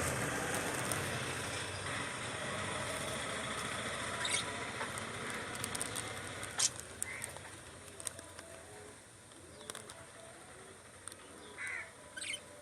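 Birds calling: a run of low, repeated cooing calls in the second half, with a few short high chirps. A steady background rumble fades away over the first few seconds.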